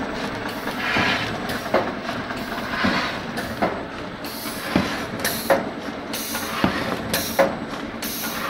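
Cardboard core cutting machine running: a steady mechanical hum with sharp clicks about once a second, and short bursts of hiss from its pneumatic cylinders.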